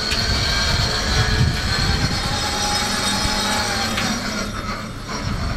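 Big Joe 24-volt electric pallet jack being driven across concrete: its electric drive motor whines steadily over the rumble of its wheels, easing off a little near the end.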